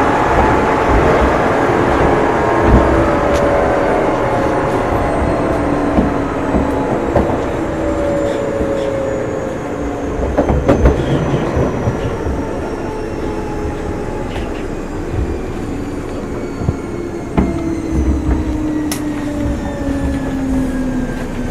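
Odakyu 9000 series electric train running: the traction motors whine in several tones that fall steadily in pitch as the train slows, over wheel and track rumble. A few sharp knocks come from the wheels over rail joints.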